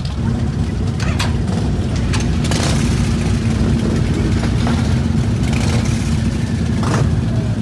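A crowd of cruiser motorcycles idling together in a loud, steady low rumble, with a few short sharp sounds on top of it.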